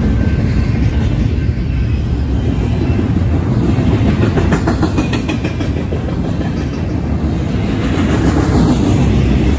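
BNSF double-stack intermodal freight cars rolling past close by: a loud, steady rumble of steel wheels on the rails, with some clicking of the wheels over the track.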